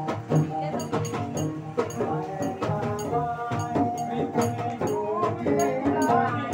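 Live gambus ensemble music: a melody line with held and sliding notes over guitar and a steady, regular percussion beat.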